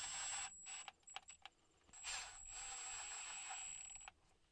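Power ratchet running a differential cover bolt down, in two short runs, about a second and then about two seconds, each with a steady high whine, and a few clicks between them.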